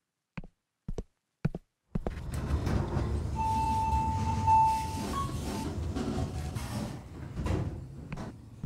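Elevator sound effects: three quick clicks, then a steady low hum of an elevator sets in. A held electronic beep sounds for under two seconds as the call button is pressed, and sliding elevator doors open near the end.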